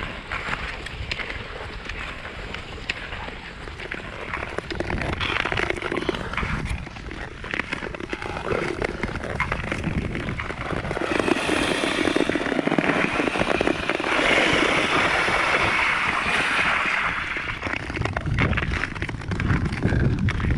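Nordic touring skate blades gliding and scraping over natural lake ice, a steady rushing hiss broken by many short clicks and crackles. It grows louder about halfway through.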